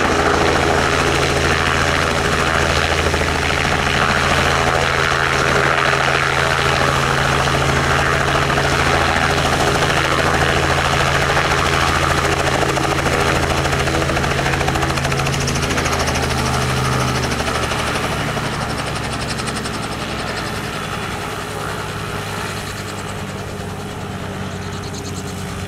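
Robinson R44 helicopter hovering low, its main rotor and six-cylinder Lycoming piston engine running loud and steady. About two-thirds of the way through the sound changes and gradually grows quieter as the helicopter settles onto the ground and power comes off.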